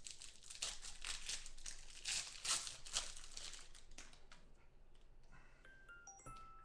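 Plastic wrapping on a pack of trading cards crinkling and tearing as it is ripped open, busy for about four seconds and then dying away. Near the end come a few short, faint tones at stepping pitches.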